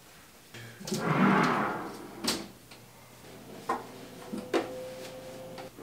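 Household clatter of things being put away: a sliding scrape about a second in, then several sharp knocks and clicks, over a low steady hum.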